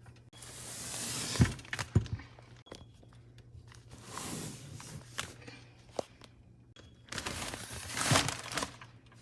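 Packaged bags of pet bedding being handled and stacked: rustling and crinkling of the packaging in several bursts, with a few dull thuds as bags are set down.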